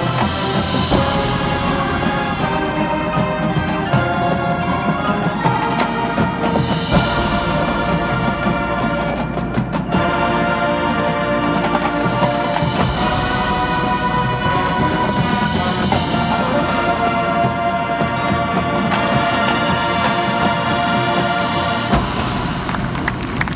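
High school marching band playing with its front-ensemble percussion: brass and woodwinds hold loud sustained chords that change every couple of seconds.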